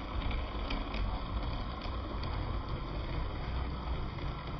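Model railway railcar running along the track: a steady motor and wheel rumble, with a scattering of light clicks, mostly in the first half, as the wheels cross rail joints and points.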